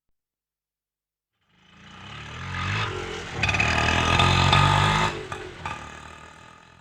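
Auto rickshaw engine, rising out of silence about a second and a half in, loudest in the middle and fading away near the end, like a pass-by.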